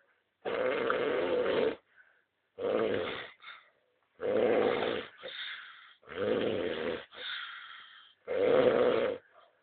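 Loud snoring: five snores about two seconds apart, the third and fourth each trailing off into a quieter breath.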